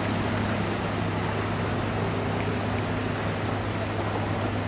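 Flood pump engine running steadily with a constant low hum, pumping floodwater through lay-flat hoses.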